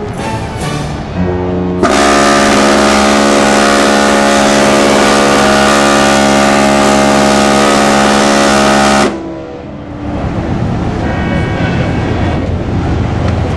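A ship's whistle sounds one long, steady blast lasting about seven seconds, starting about two seconds in and cutting off suddenly. It is the liner's sailaway salute. Shorter horn toots come just before it, and a noisy wash follows once it stops.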